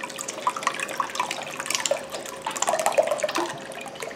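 Evaporated milk pouring from two church-key-punched cans into a glass mixing bowl of beaten eggs, an irregular trickling and splashing.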